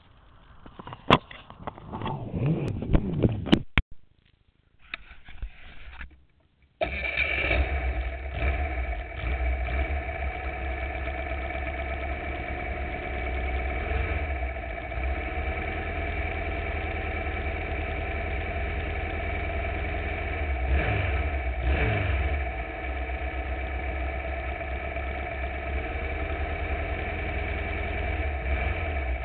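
Knocks and scuffs of the onboard camera being handled. Then, about seven seconds in, a Formula Vee's air-cooled Volkswagen flat-four engine starts abruptly and idles steadily, with a couple of brief rises in revs.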